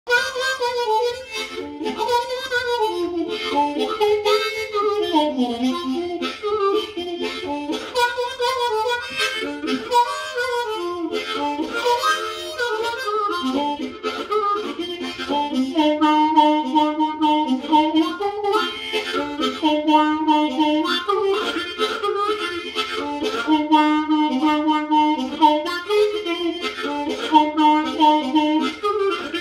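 Seydel 1847 Classic diatonic harmonica in B♭ with Wilde Tuned Rock tuning, played solo with the hands cupped around it. In the first half it plays a quick tune full of bent, sliding notes. From about halfway it pulses repeated chords in a steady rhythm.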